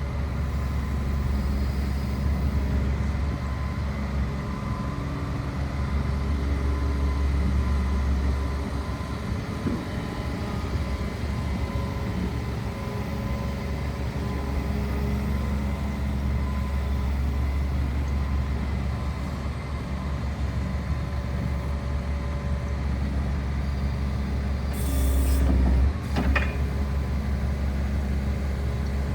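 Diesel engine of a Volvo ECR235DL tracked excavator running steadily with a deep hum. Near the end comes a brief hiss, followed by a sharp click.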